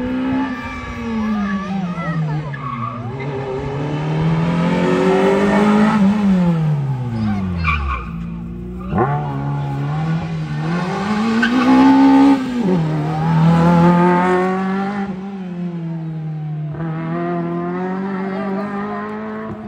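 Suzuki Swift GTI race car's twin-cam four-cylinder engine revved hard under full throttle, its pitch rising and falling several times as the driver accelerates and lifts. The revs fall away steeply about eight seconds in, climb again, then hold steady near the end.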